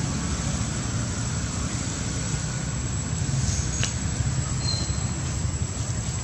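Steady low rumbling background noise with a thin, steady high-pitched whine over it.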